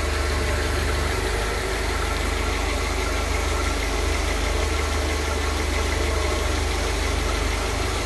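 Mercedes-Benz engine with KE-Jetronic fuel injection idling steadily, warmed up to operating temperature.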